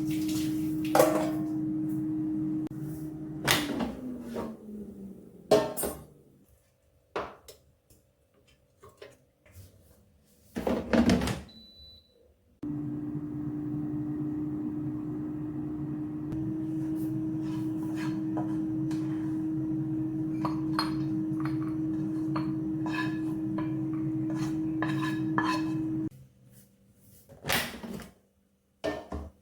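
Microwave oven running with a steady electric hum that winds down and stops a few seconds in. Kitchenware clatters, a short high beep sounds, and the oven hums again for about thirteen seconds before cutting off.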